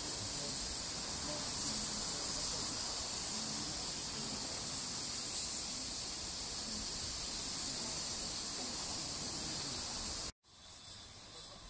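Steady hiss of steam from a steam locomotive standing at the platform, cutting off suddenly near the end.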